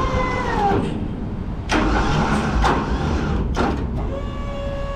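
Roll-off truck's engine and hydraulic hoist loading a dumpster container: a steady whine whose pitch drops and fades about a second in, three sharp metal clanks from the container and hoist, then a steady whine again near the end.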